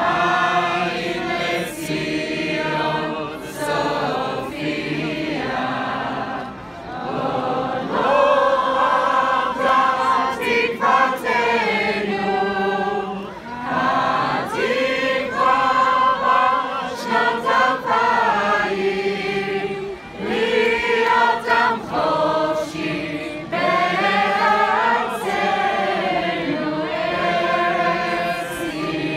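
A crowd singing together in chorus, many voices carrying one melody in long phrases with short breaks between them.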